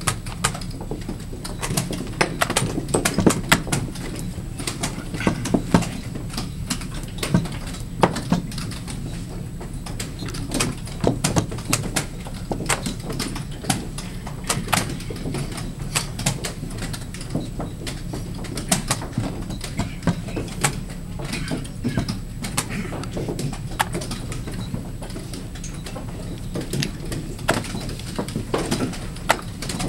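Plastic chess pieces set down on a roll-up vinyl board and a digital chess clock's buttons pressed in turn during fast blitz play: an irregular run of sharp clacks and taps, several a second at times, over a steady low background noise.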